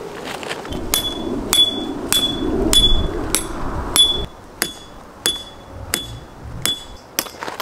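Hammer driving a tent peg into gravel ground: about a dozen steady blows, roughly two a second, each with a short metallic ring.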